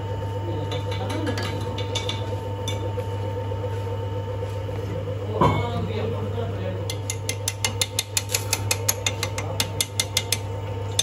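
Steady hum of a metal lathe in a workshop, with a single metallic knock about halfway through. Then a fast, regular run of sharp metallic ticks as a hand file is held against the spinning cast-iron harrow hub.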